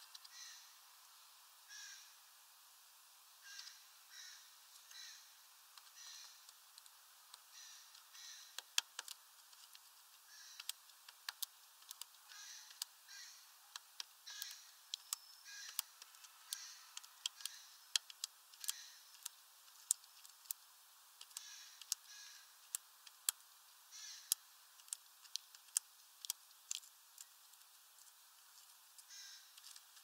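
Great tit pecking at a seed on the feeder's wooden perch: a run of sharp taps, a few a second at times, starting about nine seconds in. Short bird calls repeat about once a second throughout.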